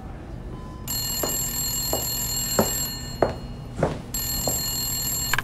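Corded landline telephone ringing, two rings (the first about two seconds long, the second about a second and a half after a short pause), with footsteps crossing the floor beneath them.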